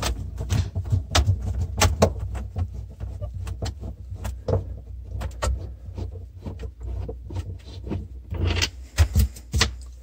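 Irregular clicks and knocks of a screwdriver and hands working screws out of the plastic rear panel inside a refrigerator compartment, over a steady low hum. A denser patch of rustling and handling comes near the end.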